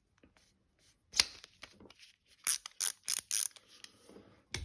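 Klein 15-in-1 ratcheting screwdriver being handled and worked, its ratchet giving several short bursts of clicking, with a sharp knock about a second in and another near the end.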